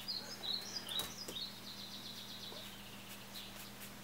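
Faint chirping of a small bird, quick runs of short high notes in the first second and a half, over a steady low hum.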